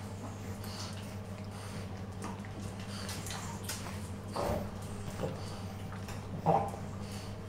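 Small chihuahua puppy giving two short, high little barks, about four and a half and six and a half seconds in, the second louder, over a steady low hum.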